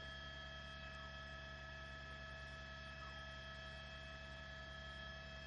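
Steady electrical mains hum with several faint, constant high whining tones; nothing else happens.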